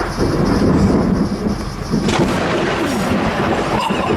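Loud rolling thunder from a nearby lightning strike, a heavy rumble with a sharper crack about two seconds in.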